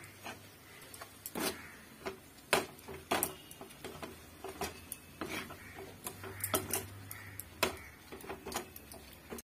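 Metal spoon knocking and scraping against a frying pan while stirring a thick mix of cooked red amaranth greens and peanuts: irregular clicks and scrapes, roughly one a second.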